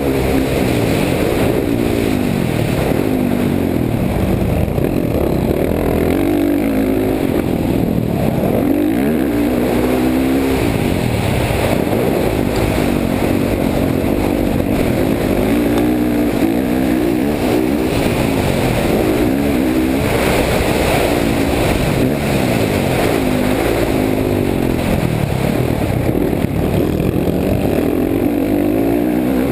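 Motocross dirt bike engine revving hard and rolling off again and again as the rider accelerates, shifts and brakes around the track, heard close up from the rider's helmet. The pitch climbs and drops every few seconds.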